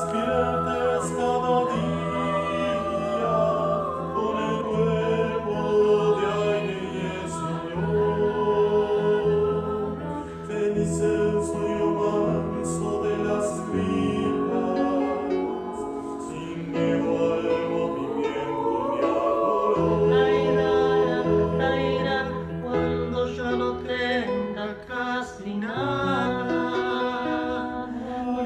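Mixed choir of sopranos, altos, tenors and bass singing a slow Spanish-language song in harmony with piano accompaniment. The voices were recorded separately at home and mixed as a virtual choir.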